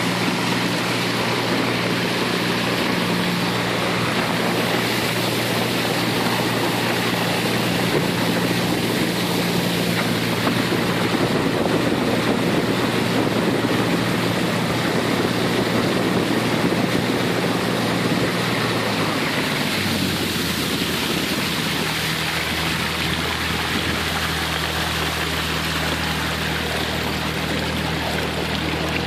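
Small boat's motor running steadily under way, with water and wind rushing past the hull. About two-thirds of the way through the engine's hum drops to a lower pitch as it is throttled back.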